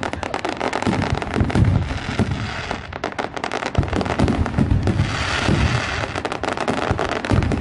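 Aerial fireworks bursting in a dense barrage: rapid, continuous crackling and popping over deep booms, easing briefly about three seconds in before building again.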